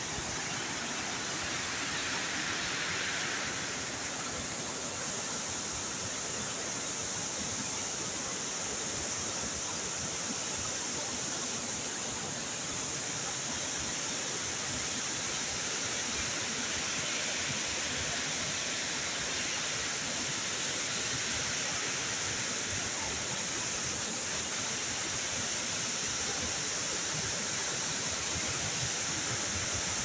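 White Nile rapids: fast white water rushing over and around rocks, a steady, unbroken rushing noise.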